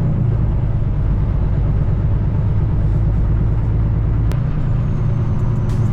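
Semi truck's diesel engine running with a steady low drone as the truck gets moving.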